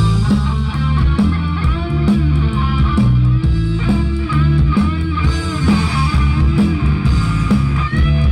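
Live rock band playing an instrumental break: a bending electric guitar lead over steady bass guitar and drums, with no singing.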